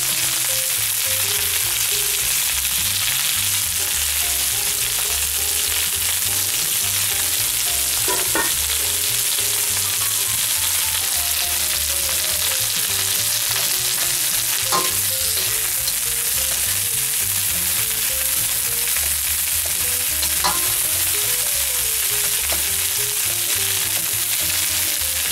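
Tiger shrimp sizzling steadily in hot oil in a nonstick wok, frying at medium heat. A spatula knocks against the pan a few times as the shrimp are turned.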